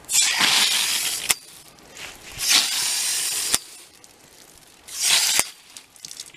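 Garden hose spray nozzle spraying water onto soil in three hissing bursts: the first two about a second long, the last shorter, each cutting off suddenly.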